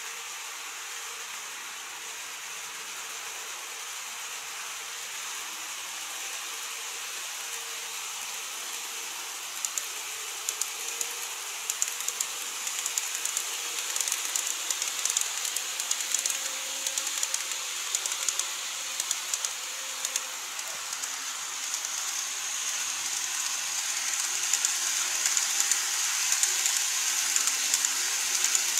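Model 813 series electric train running along the layout track: a steady high hiss, joined about ten seconds in by rapid clicking of the wheels over the rail joints, growing louder toward the end as the train passes close by.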